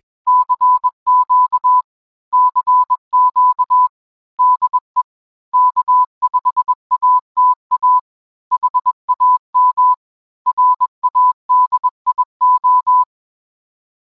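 Morse code: a single steady beep of about 1 kHz keyed on and off in short and long elements, sent in groups with pauses between them, stopping about a second before the end.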